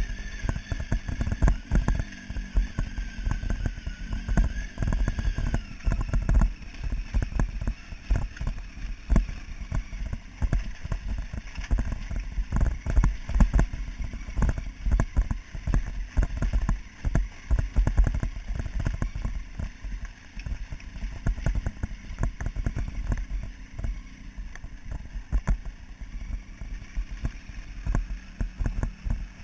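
Motorcycle riding slowly over a rough, stony gravel track: constant irregular knocks and jolts from the bumps over a deep rumble of the engine.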